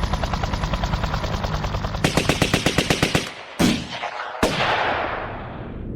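Rapid automatic gunfire, a machine gun firing a fast even stream of shots that grows louder about two seconds in. It stops, then two single shots follow, the second ringing out in a long fading echo.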